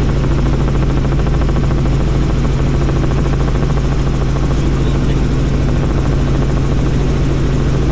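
Bell helicopter in flight, heard from inside the cabin: a loud, steady rotor and engine noise with a strong low hum that does not change.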